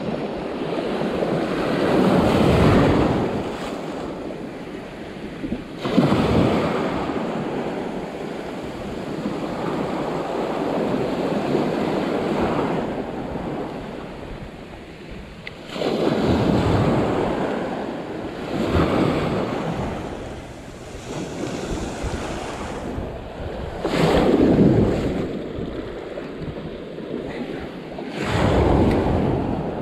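Ocean surf breaking and washing up the shore in swells every few seconds, with wind noise on the microphone.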